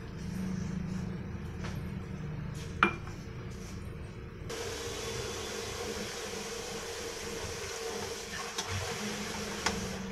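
Hands mixing and kneading flour dough in a metal bowl: soft squelching and rubbing, with a sharp clink against the bowl about three seconds in and lighter knocks near the end, over a steady hum.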